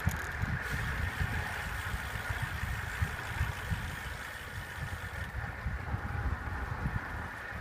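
Wind buffeting a phone microphone on a moving bicycle: an uneven low rumble over the steady hiss of tyres rolling on a tarmac lane.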